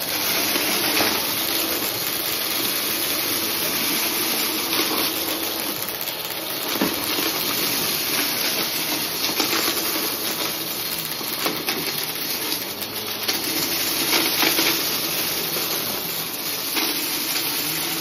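Upright bagless vacuum cleaner running steadily over carpet, its motor and airflow a constant hiss, with scattered small ticks as confetti is pulled into the head and bin.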